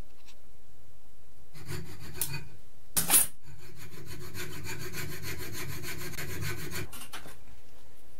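Fast back-and-forth rubbing strokes of a hand tool working a small workpiece, several strokes a second, with one louder scrape about three seconds in; the strokes stop about seven seconds in.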